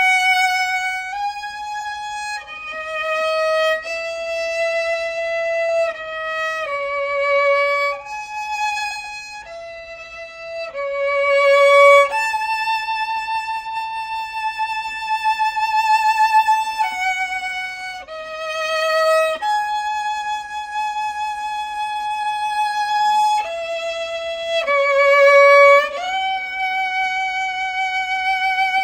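Solo violin, bowed, playing a slow melody of sustained notes with vibrato, some held for four or five seconds.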